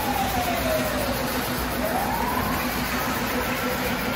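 A siren wailing, its single tone sliding slowly down, rising again about two seconds in, then falling slowly. It plays over a steady background rumble from the running model train layout.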